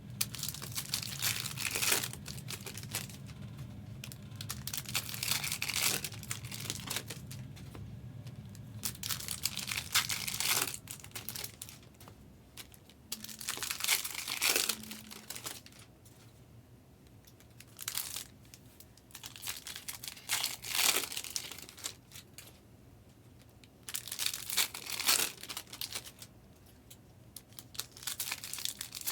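Foil wrappers of trading card packs being torn open and crinkled, with cards handled between tears: a run of separate rustling bursts a second or two long, with quieter gaps between them.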